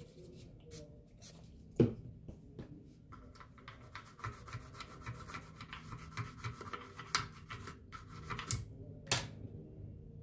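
A small hand tool scraping and rubbing against an amplifier's circuit board, with many scattered ticks, a sharp click about two seconds in and several louder clicks near the end, as a damaged resistor and capacitor are being worked off the board for replacement.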